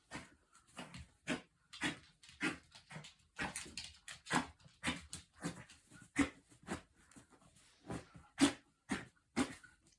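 Bichon Frise making rapid, repeated 'hau hau' huffs, about two a second. The owner isn't sure whether this is a reverse sneeze.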